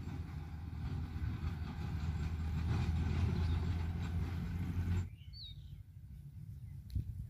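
A steady low engine drone with a rushing haze over it, which cuts off suddenly about five seconds in. Quieter outdoor background follows, with a short bird chirp.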